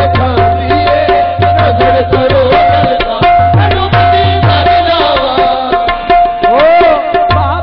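Live Punjabi devotional music: a tabla playing a brisk rhythm, its bass drum strokes bending in pitch, over a steady held note.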